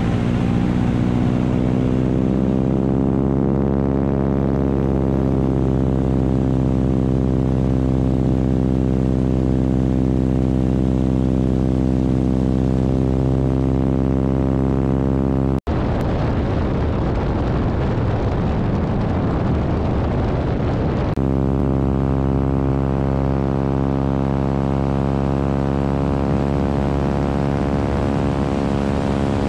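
Biplane's radial engine and propeller droning steadily in flight, with wind noise on the wing-mounted microphone. About halfway through the sound drops out for an instant, then turns rough and noisy for several seconds before the steady drone returns.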